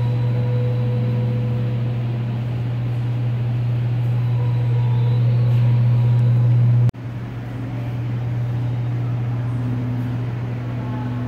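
A steady, loud low drone, cutting out for an instant about seven seconds in and then carrying on a little quieter.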